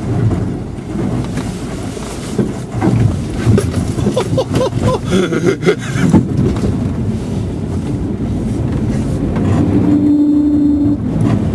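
Off-road 4x4 driving over a rutted, muddy track, heard from the following vehicle. The engine runs under load, with irregular knocks and rattles as the vehicle jolts through the ruts. A steady droning note comes in near the end.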